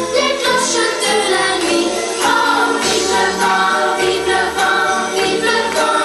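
Children's choir singing a Christmas song together over an instrumental backing with a steady bass line.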